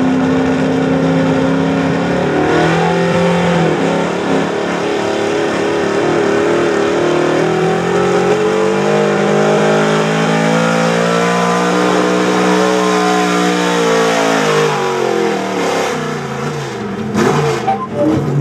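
Big-block V8 of a square-body Chevrolet pulling truck at high revs under load as it drags a weight-transfer sled. The revs dip briefly, climb and hold, then fall away near the end, with a few sharp cracks.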